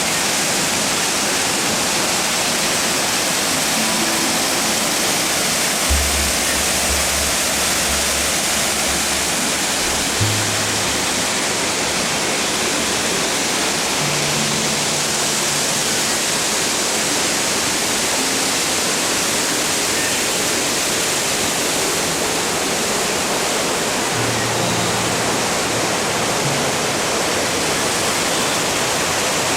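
Waterfall rushing steadily, with the low held bass notes of background music coming and going.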